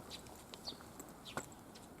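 Faint chirps of small birds, short high notes falling in pitch, repeating every half second or so, with scattered light clicks and one sharper tap a little after halfway.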